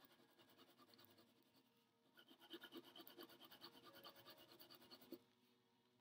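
Faint scratching of a pencil shading on paper in quick back-and-forth strokes, several a second, busier from about two seconds in and stopping near the end.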